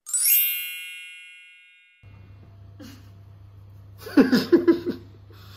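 A bright bell-like chime sound effect rings out at once and fades away over about two seconds. About four seconds in, a short, loud burst of voices comes from the room.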